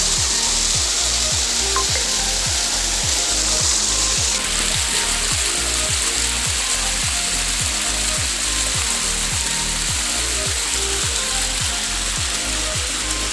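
Background music with a steady beat and bass line, under a loud steady hiss.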